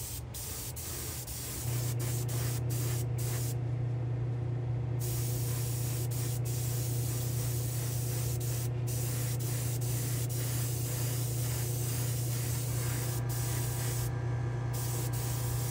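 Airbrush hissing as it sprays liquid chrome paint, in several bursts broken by short pauses. A steady low hum comes in about two seconds in and runs under the spraying.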